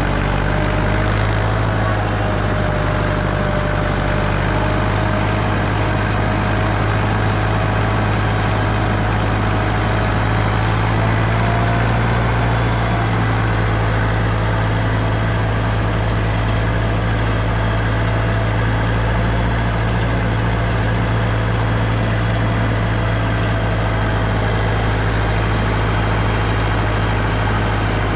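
An engine running steadily: a constant low hum with a fainter higher tone above it that wavers slightly in pitch.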